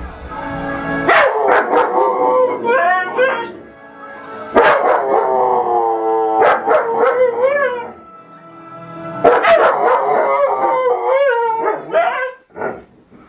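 Husky-type dog howling in three long, wavering bouts with short breaks between them, and shorter yipping notes mixed in.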